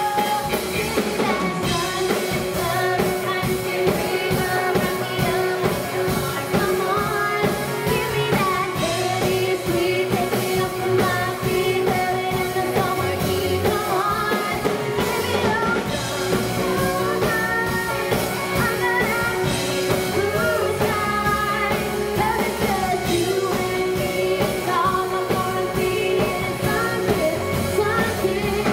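Live band playing a song: a woman sings lead over electric guitar and a drum kit keeping a steady beat.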